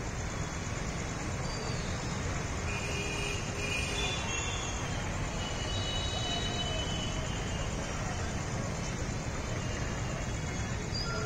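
Steady outdoor background noise with no clear single source. A few faint short high tones stand out here and there.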